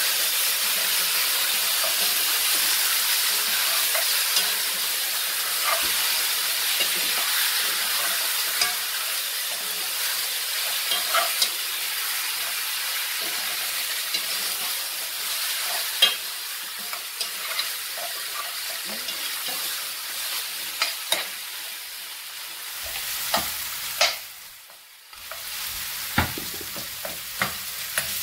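Curry-seasoned oxtail pieces sizzling in hot oil in a metal pot, stirred with a metal spoon that clicks and scrapes against the pot now and then. The sizzle is steady, easing off somewhat in the last few seconds.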